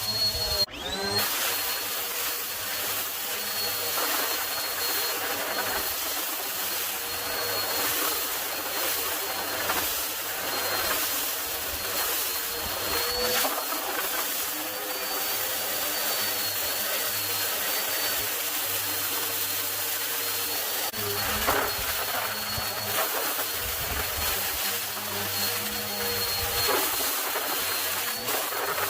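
Vacuum cleaner running steadily, a rushing air noise with a high motor whine whose pitch wavers slightly; the sound drops out briefly about a second in.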